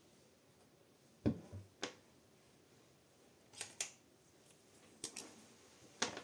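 A handful of short, sharp clicks and light taps at uneven intervals, from small craft things being handled on a desk. The first, about a second in, has a soft thud, and there is another loud click near the end.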